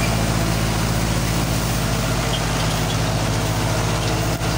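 Al-Ghazi tractor engine running steadily as it powers a tractor-driven thresher, a constant low drone with the thresher's dense rushing noise over it.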